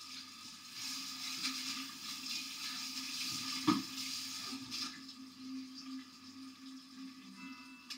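Cooked bulgur being scraped and stirred in a plastic mixing bowl: a soft, gritty rustling for the first few seconds, with one short knock about halfway through. A steady low hum runs underneath.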